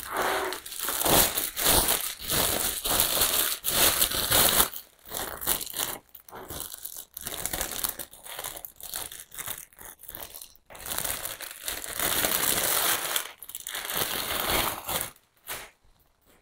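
Clear plastic wrapping crinkling and rustling as a potted plant is pulled out of its sleeve and handled, in irregular bursts that stop shortly before the end.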